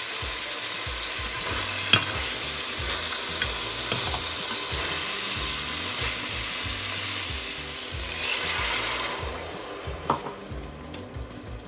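Chicken chilli sizzling in a stainless-steel pot as a spatula stirs it. A few clinks of the spatula against the pot ring out, the loudest about two seconds in. The sizzle dies down near the end.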